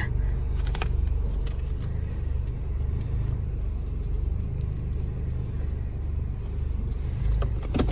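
Car engine idling, a steady low rumble heard from inside the cabin, with a few faint clicks.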